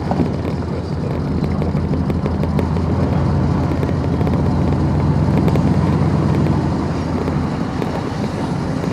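Vehicle engine running as it drives slowly, a steady low rumble that grows louder toward the middle and eases off near the end.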